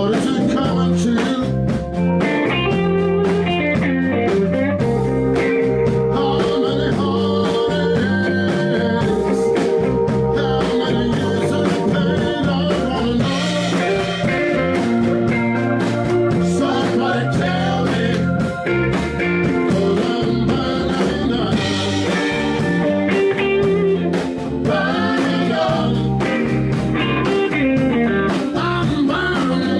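Live blues band playing: electric guitar and drums, with a man singing.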